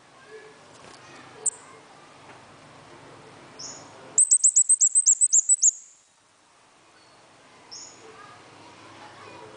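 Caged songbird calling: a few single high chirps, then about four seconds in a fast run of about a dozen sharp, high, down-slurred notes lasting a second and a half.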